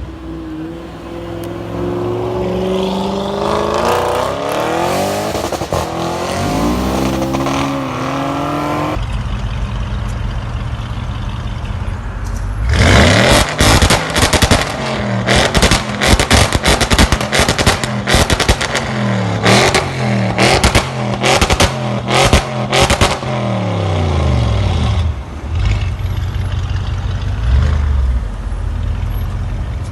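Audi RS6 C7's twin-turbo 4.0 V8 through a Milltek exhaust with catless downpipes. For the first nine seconds the engine note climbs and falls. After a sudden change comes a run of quick, hard revs with crackles and pops from the exhaust, and it settles to a loud, steadier idle in the last few seconds.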